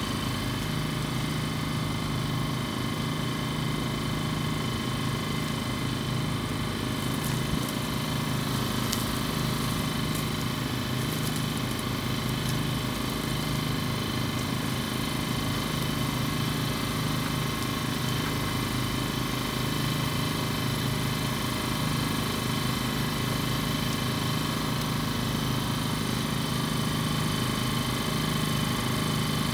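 A steady engine-like drone, unchanging throughout, with a constant low hum and faint fixed whines above it, like machinery idling; a few faint ticks come between about 7 and 12 seconds in.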